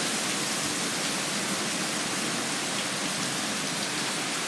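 Heavy storm rain pouring down, a dense, even hiss that holds steady throughout.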